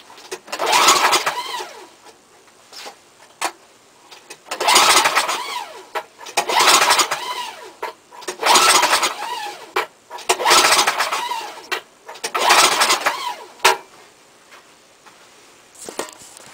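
2001 Mastercraft 4x4 snowblower's 10.5 hp Tecumseh Snow King engine being pull-started cold on full choke: six cranking pulls of about a second each, with short pauses between them, and the engine does not fire.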